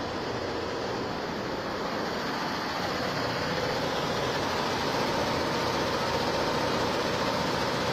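A 24-head, 9-colour multi-head embroidery machine running, its heads stitching with a steady, dense mechanical clatter. It gets a little louder about three seconds in.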